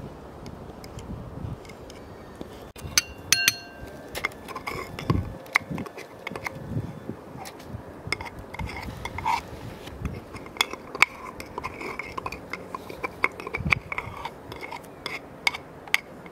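A metal spoon and small knife tapping, clinking and scraping against a wooden mortar and a ceramic bowl while crushed garlic is scraped out: scattered sharp clicks and scrapes, the loudest few, about three seconds in, briefly ringing.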